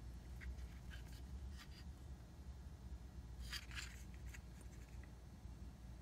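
Faint handling noise: light scrapes and ticks of a plastic USB hub and its cable turned in the fingers, the largest cluster about three and a half seconds in, over a low steady hum.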